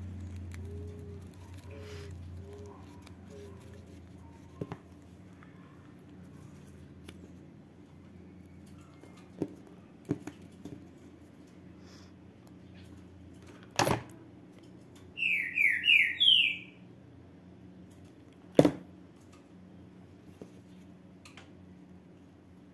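Quiet handling of a ribbon hair bow by fingers, with a few sharp clicks, two of them louder. About two-thirds of the way in, a bird gives four quick descending chirps.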